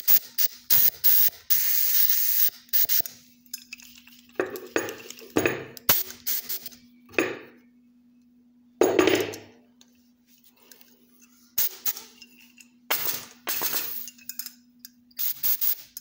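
A refillable gas torch and its gas canister being handled and fitted together: quick metal clicks and clinks, with a few short rushing bursts.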